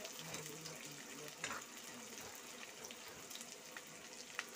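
Sliced onions, green chillies and bay leaves sizzling steadily in hot oil in a wok, with a couple of light clicks of the spatula against the pan.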